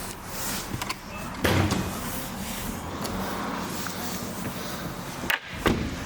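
Two short thuds over a steady low hum: one about a second and a half in, the other near the end.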